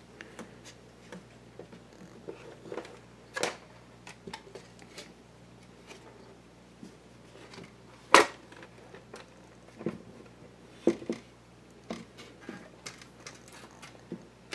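Handling noise from the Admiral 329 record player being turned over on the bench: scattered clicks and knocks of its changer and wooden base, with the loudest knock about eight seconds in and a few more around ten to eleven seconds. A faint steady low hum sits underneath: the amplifier buzzing in the speaker.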